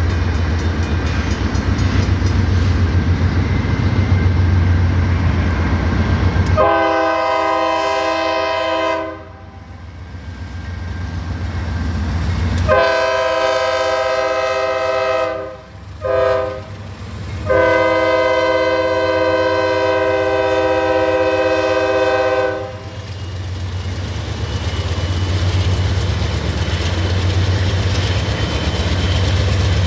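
Norfolk Southern freight train led by two AC44C6M diesel locomotives blowing its multi-note air horn long, long, short, long, the standard grade-crossing signal. Underneath is a steady low rumble from the locomotives and the train rolling on the rails.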